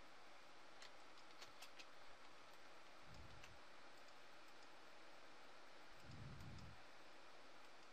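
Near silence with faint computer mouse clicks, a quick cluster of them about a second in, over a steady hiss. Two soft low thuds come about three and six seconds in.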